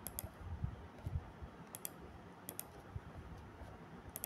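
Computer mouse clicking: four quick double clicks (press and release) spaced about a second apart, with a few faint low knocks in between.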